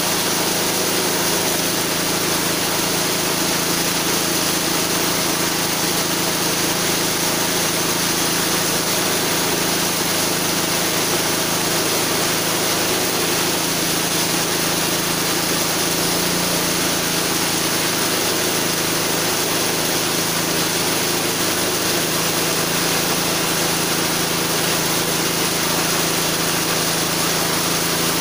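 6.5 hp small single-cylinder petrol engine of a homemade chainsaw mill running steadily at constant speed, driving the saw chain through a log.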